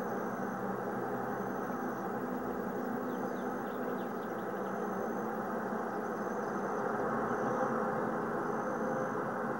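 A vehicle engine idling steadily, with a short high chirp repeating about every second and a half above it.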